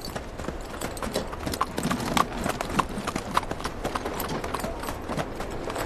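Hoofbeats of a ridden horse: a steady run of clip-clops, several to the second.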